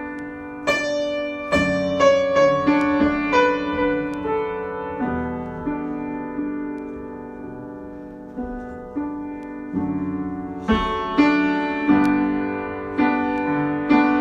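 Solo piano improvisation: single notes and chords struck and left to ring, with a falling line early on, a quieter, sparser passage through the middle, and louder, fuller playing again from about eleven seconds in.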